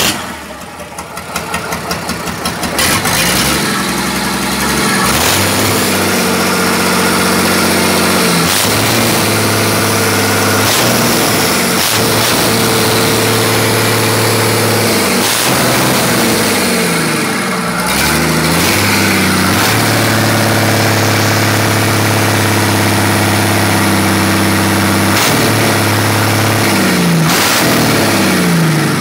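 MWM 229/6 six-cylinder marine diesel engine running loudly, its speed coming up about three seconds in and then dipping and rising again several times.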